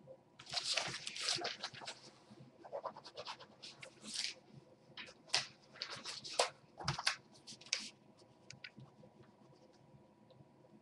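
Irregular bursts of scratching and rustling for about eight seconds, then a few faint clicks, over a faint steady hum.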